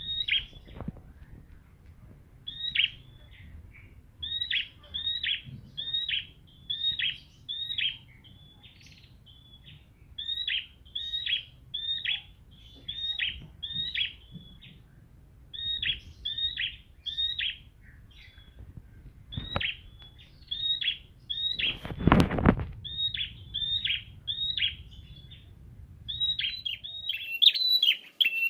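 Prenjak (prinia) singing: sharp, high chirping notes repeated in quick groups of two to six with short pauses between, running into a faster chatter near the end. A brief loud low thump comes about two-thirds of the way in, over a faint low rumble.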